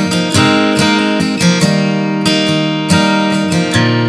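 Background music of strummed guitar chords.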